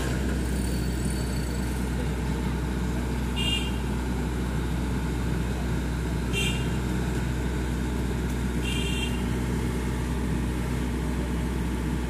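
Yanmar tracked rice combine harvester's diesel engine running at a steady drone. Three short, high-pitched chirps come through it, about three seconds apart.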